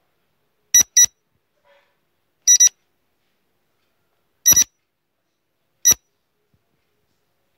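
Short, high electronic timer beeps, mostly in quick pairs, coming about every one and a half to two seconds with silence between. They tick off the seconds of a quiz answer countdown.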